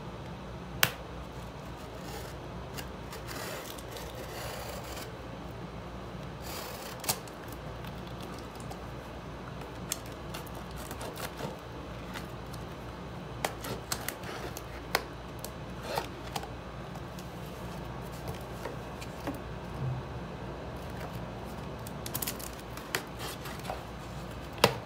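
A kitchen knife cutting through packing tape along the seams of a cardboard box: stretches of scraping and slicing, and scattered sharp clicks and taps, over a steady low hum.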